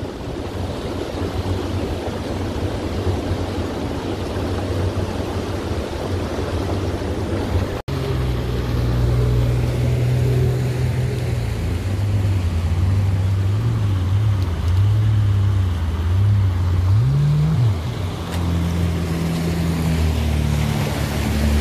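Boat motor running at a steady pitch under the rush of water. After a sudden break about eight seconds in, watercraft engines run at higher power with water spraying, their note wavering up and down and swinging sharply up and back near the end as a Yamaha jet ski runs close alongside.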